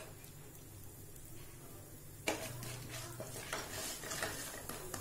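Urad dal frying in a little oil in a nonstick pan with a soft sizzle, stirred with a wooden spatula. About two seconds in, a sharp knock of the spatula against the pan starts a run of louder scraping stirs.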